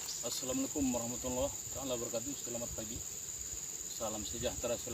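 Insects, crickets or the like, making a steady high-pitched drone, with a faint voice talking in the background.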